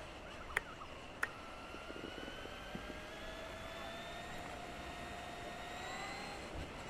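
Electric drive of a Traxxas E-Maxx RC monster truck whining while it drives, the pitch climbing slowly and steadily as it gains speed. Two sharp ticks in the first second or so.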